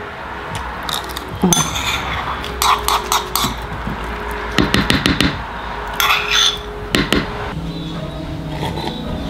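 Metal spoon clinking and scraping against a ceramic bowl: a series of short, sharp clinks in small clusters.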